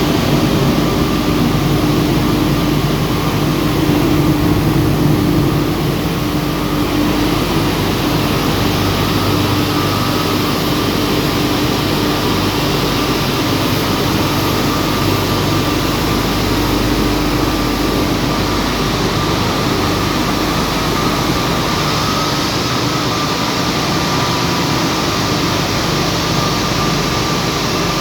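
Marble sandblasting machine running steadily: a loud, even hiss with a steady hum beneath it.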